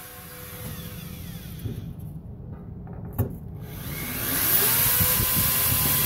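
Corded electric drill boring a hole through the side of a metal ammunition canister. It is quiet at first, then the drill runs steadily under load from about four seconds in.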